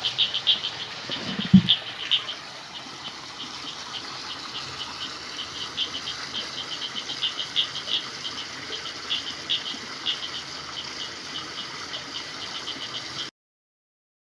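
Night chorus of frogs calling in rapid, irregular high chirps over a steady faint hiss, with one brief, loud low sound about a second and a half in. The sound cuts off abruptly about a second before the end.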